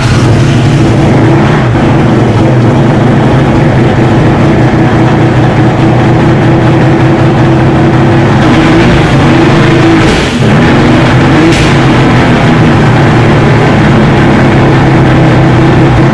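Twin-turbo billet four-rotor rotary engine in an FD RX-7 running loud and steady just after starting, with a brief dip about ten seconds in.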